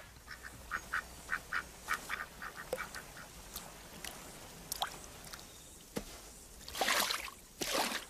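Ducks quacking in a quick run of short calls, about three a second, over the first three seconds. A few sharp clicks follow, then a short burst of noise near the end.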